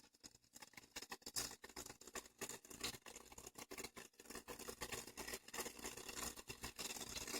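Nakamichi 700 cassette deck rewinding a tape at high speed: a faint, rapid, irregular ticking over a low steady hum.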